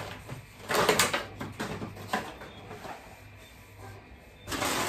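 A plastic fabric-softener bottle set down on a counter with a clatter of knocks about a second in, then a few lighter taps. Near the end a plastic packet crinkles as it is picked up.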